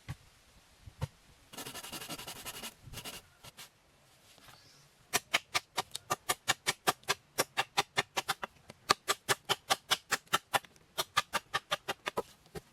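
Rapid, evenly spaced sharp strikes, about four a second, typical of a blade chopping wood or bamboo, starting about five seconds in. Before that, a short rasping scrape lasting about a second and a half.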